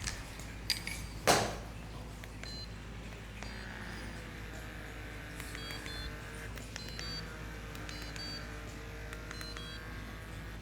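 Quiet background music with soft gliding tones and short high electronic beeps. A single sharp knock stands out about a second in, louder than anything else.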